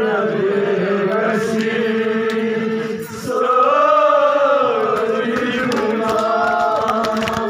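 Crowd of men's voices chanting together in a drawn-out, sung chant; the voices dip briefly about three seconds in, then swell again.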